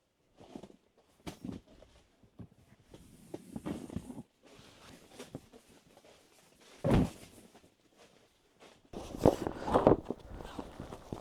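Irregular soft knocks and thuds, with one louder low thump about seven seconds in and a busier run of knocks and clatter from about nine seconds.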